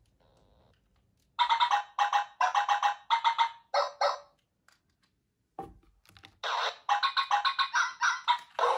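Hasbro I-Dog robot dog's speaker playing its electronic dog-voice effects: a quick run of short chirping yips, about three a second, then a click and a second run. This unit has the low-pitched voice.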